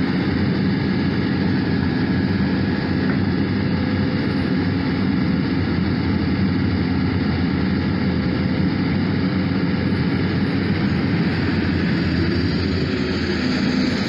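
Sumitomo SH300 hydraulic excavator's diesel engine running steadily while it digs, a continuous low drone.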